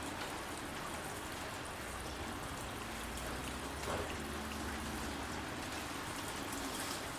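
Rain falling steadily, an even patter and hiss, with one slightly louder tap of a drop about four seconds in.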